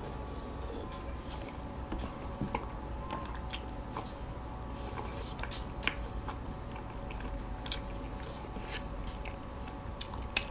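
Close-miked chewing of soft walnut cakes (hodu-gwaja) filled with sweet red bean: faint, scattered wet mouth clicks and smacks.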